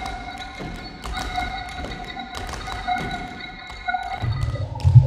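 Contemporary ensemble music for voices, organ, percussion and electronics: a high note held steady, with scattered taps and knocks. About four seconds in, a loud low drone and a new, lower held tone take over.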